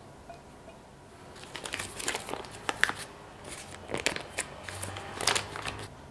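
Foil-lined paper butter wrapper crinkling and crackling as it is peeled open from a block of butter, a run of sharp rustles starting about a second in and stopping just before the end.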